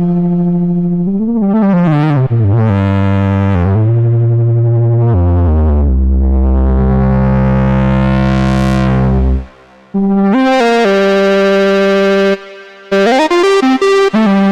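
Moog Subsequent 25 analog synthesizer playing a bright monophonic lead line. The notes step downward to a long low note whose filter sweeps open and then closed again, and after two short breaks it ends in quick, clipped notes.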